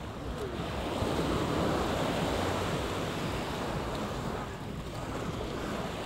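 Small waves washing up onto a sandy beach, the surf swelling louder about a second in and easing off again, with wind buffeting the microphone.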